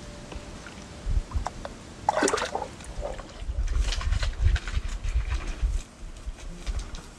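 Water splashing and sloshing in a shallow pool, several irregular splashes with low rumbling thumps underneath; the loudest splash comes about two seconds in.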